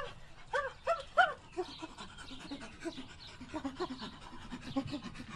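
Monkeys calling: a few short pitched calls that rise and fall in the first second and a half, then a quick run of shorter, lower calls, several a second.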